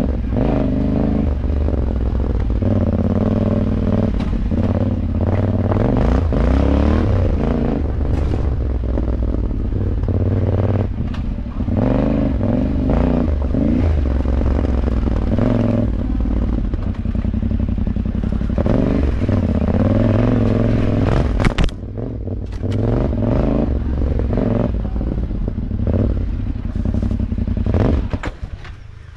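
Motorbike engine running on a rough dirt trail, its pitch rising and falling as the throttle is worked, with clattering and scraping from the bike over the bumpy ground. Near the end the throttle is rolled off and the engine drops away sharply before picking up again.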